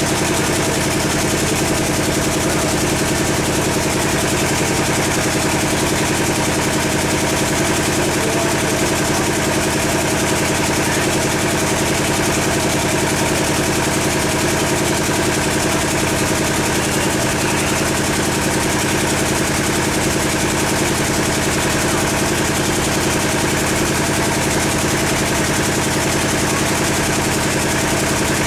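An engine idling steadily, a constant even drone that does not change.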